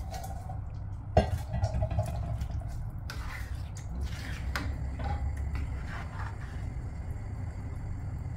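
A silicone spatula stirring ash gourd pieces through thick yogurt gravy in a stainless steel pan, with wet squelching and light scraping, over a steady low rumble. A sharp knock comes about a second in.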